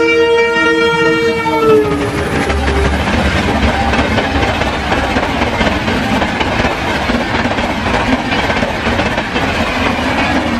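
Indian Railways locomotive horn sounding a chord, dropping in pitch as the train passes and stopping just under two seconds in. The train then rushes past at speed, wheels clattering over the rail joints.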